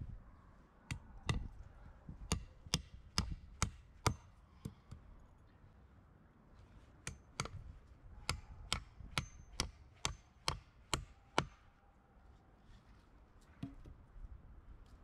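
A hand tool striking wood in steady, sharp blows, two or three a second: a run of about eight blows, a short pause, then a run of about eleven more.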